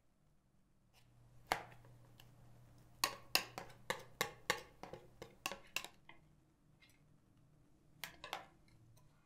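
Sharp clicks and light knocks of kitchen bowls and utensils while egg yolk batter is poured from a bowl onto whipped meringue in a glass bowl. There is one click about a second and a half in, a quick run of about eight between three and six seconds, and two more near the end.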